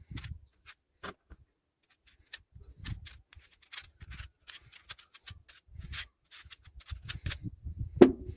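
Irregular clinks and knocks of small metal parts and hand tools being handled, with a louder knock about eight seconds in.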